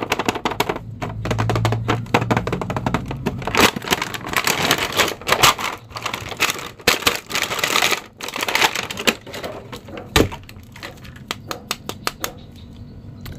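Plastic toy packaging crinkling and a cardboard box rustling as an action figure is unboxed by hand: dense crackling for the first eight seconds or so, then scattered clicks and taps.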